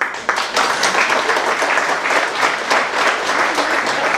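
A small audience applauding: many hands clapping together, beginning abruptly and going on steadily.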